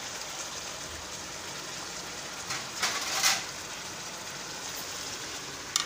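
Chicken curry sizzling in oil in a steel pot, a steady hiss, with a louder scraping stir of a wooden spoon about three seconds in and a sharp click near the end.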